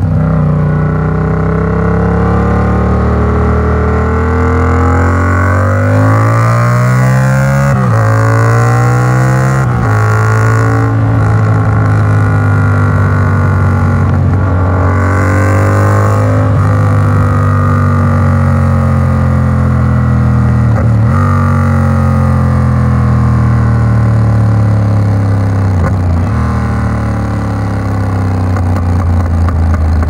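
Yamaha MT-07's parallel-twin engine through an Arrow Works exhaust, ridden on the road. Its note climbs in pitch as it accelerates and drops back sharply several times.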